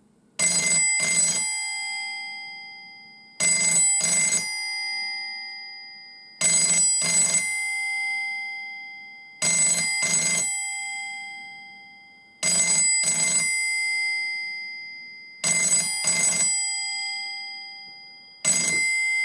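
The single-gong mechanical bell ringer of a 1983 BT Empress telephone ringing for an incoming call: quick double rings about every three seconds, in the British double-ring cadence, with the gong's tone hanging on and fading between them. It is quite clangy and loud. The last ring near the end is a single short one as the handset is lifted.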